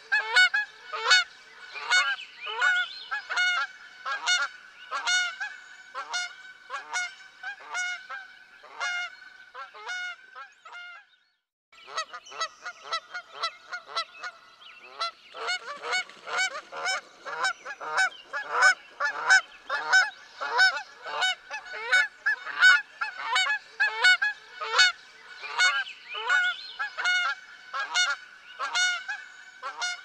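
A flock of geese honking: many short honks, overlapping and repeated several times a second. The calling cuts out for about half a second a little before the middle, then resumes.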